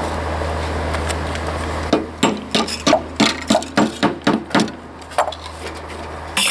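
Hammer nailing down a tensioned steel tie wire at the base of a column formwork box: about ten quick blows, roughly four a second, start about two seconds in, with one more blow shortly after. Before the blows there is a steady low hum.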